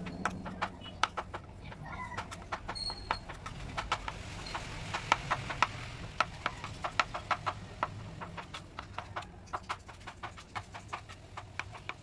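Chef's knife chopping on a wooden cutting board: sharp knocks of the blade striking the board, irregular and a few a second.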